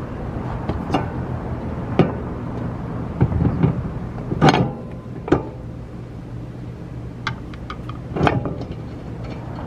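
Clunks and sharp knocks of a car wheel being hung on the hub studs and its lug nuts fitted by hand, the loudest about halfway through, over a steady low hum.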